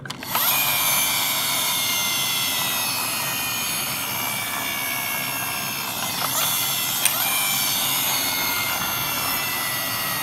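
Small toy car motor and gears whirring steadily with a high, many-toned whine, starting just after the beginning.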